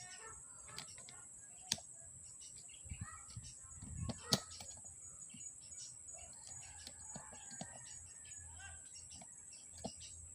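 Small birds chirping faintly, with two sharp clicks about two and four seconds in.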